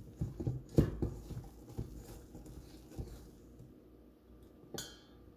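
Whisk mixing thick cake batter in a stainless steel bowl, knocking irregularly against the bowl, loudest about a second in; one sharp tap near the end.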